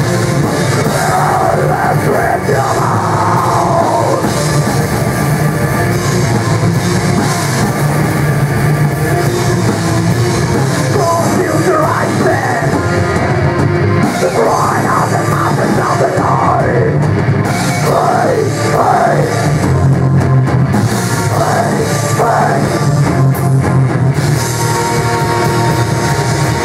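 Heavy metal band playing live in a small room: electric guitars, bass and a drum kit, loud throughout.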